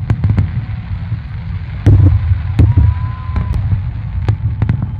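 Aerial fireworks exploding: a continuous low rumble of booms with sharp cracks and bangs scattered throughout, the loudest ones about two seconds in.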